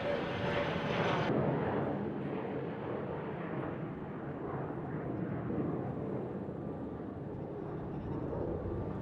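Jet airliner engine noise from an Airbus A320neo, a steady rushing sound that turns duller about a second in.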